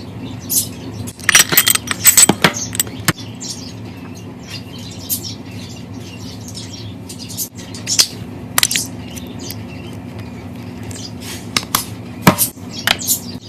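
Slime being squished and worked by hand, giving sharp clicking pops: a dense run of them about a second in and a few scattered ones later, over a steady low hum.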